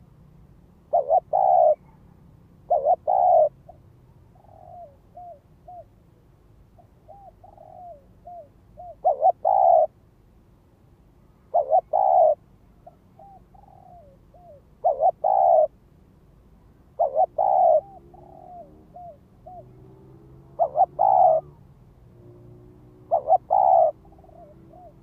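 Spotted dove (cu gáy) cooing: loud two- and three-note coos repeated every two to three seconds, with softer, short curling coos in between. This is a decoy dove's calling and goading song, used to lure wild doves.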